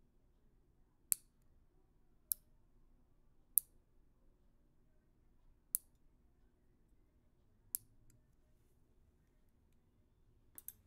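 Nail clipper snapping shut: sharp, short clicks, six single snaps spaced one to two seconds apart, then a quick double snap near the end.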